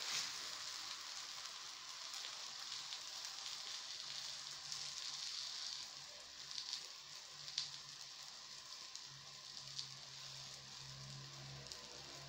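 Msemen flatbread frying in a little butter in a frying pan: a faint, steady sizzle with a few small pops.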